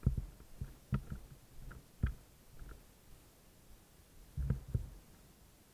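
Irregular low thumps of footfalls and jolts to a worn camera as the wearer moves over forest floor: several in the first two seconds and two close together about four and a half seconds in.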